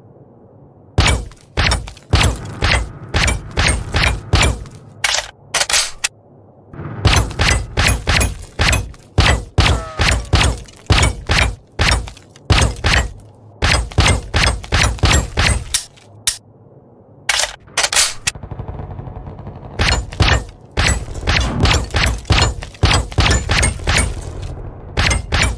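Colt Accurized Rifle firing rapid shots, about two to three a second, in long strings broken by short pauses.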